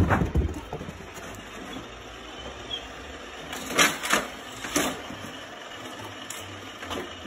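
A low thump right at the start, then a few sharp plastic clicks and clatters, the loudest about four seconds in, as a dog knocks its head and paws against a plastic toy car loop track.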